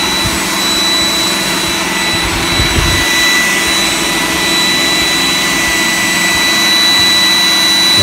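iRobot Roomba 980 robot vacuum running as it drives back to its charging dock, its vacuum fan giving a steady high whine over a hiss. A lower rumble fades out about three seconds in.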